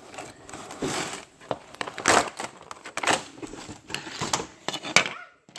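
Plastic toy parts and packaging being handled and opened: irregular crinkling, rattling and clicks.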